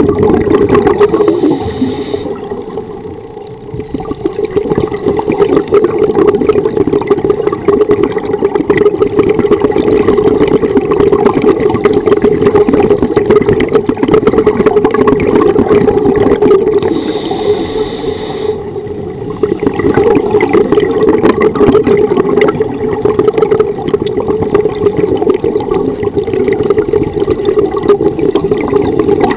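Steady, loud underwater noise on a scuba dive: a dense rumble with bubbling, dipping briefly twice, a few seconds in and about two-thirds of the way through.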